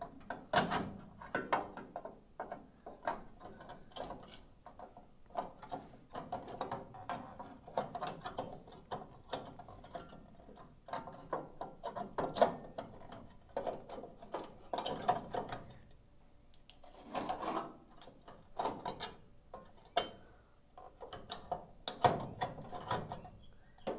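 New sheet-metal repair panel being pushed and worked up into a rusty steel VW Bus lower A-post by hand: irregular clicks, taps and scraping of metal on metal as its notched tabs catch and slide inside.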